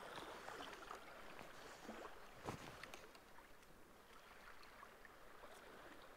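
Near silence: faint lapping of calm, shallow sea water, with a few small ticks and one soft knock about two and a half seconds in.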